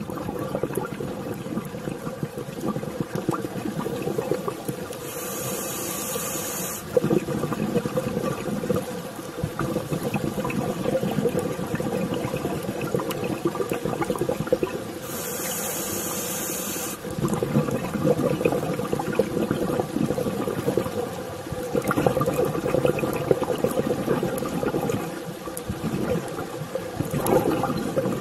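Scuba regulator breathing underwater: bubbling, gurgling exhaust bubbles from the exhalations, broken by two hissing inhalations through the second stage, about 5 and 15 seconds in.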